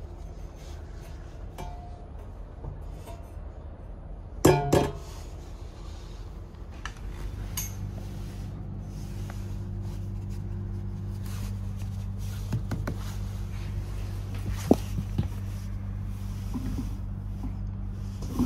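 A sharp metallic clank about four and a half seconds in as the litter bin flap by the seat of a Škoda RegioPanter electric train is handled, then a steady low hum from the moving train sets in a few seconds later, with a few light clicks of the seat fittings being handled.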